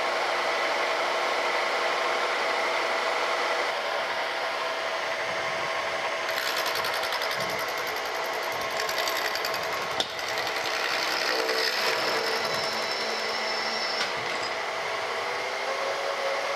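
Vertical milling machine running, its face mill taking a light first pass across the top of a cast iron casting: a steady machine hum with held tones, and a higher hiss joining about six seconds in.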